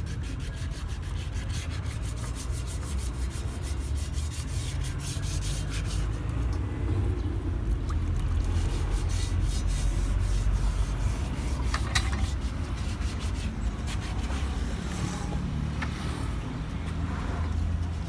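Hand wet-sanding of an aluminum wheel rim with 240-grit sandpaper: quick back-and-forth scratchy strokes, dense for the first several seconds and sparser after, smoothing the surface so the paint will stick. A steady low rumble runs underneath.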